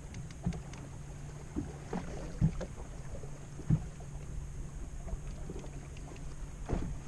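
Sounds of a small fishing boat on the water: a steady low hum, with a few sharp knocks and thumps spread through it.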